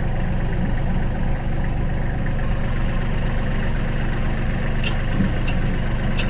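A tractor engine idling steadily, with a few light, sharp clinks in the last second or so.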